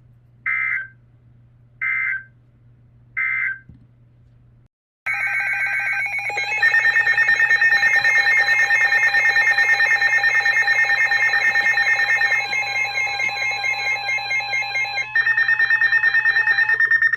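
Emergency Alert System tones on a weather radio broadcast. Three short digital data bursts come first, announcing the alert. From about five seconds in, a loud, rapidly pulsing alert tone runs through to the end, heralding a severe thunderstorm warning.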